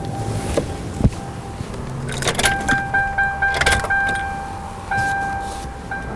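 Light clicks and short rattles of connectors and tools being handled at the engine, over a steady high whine and a low hum.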